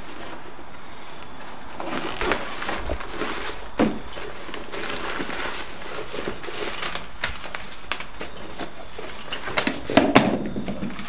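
Rustling and clattering as things are pulled out of a backpack, with sharp knocks as items are set down on a wooden bench, the loudest cluster about ten seconds in.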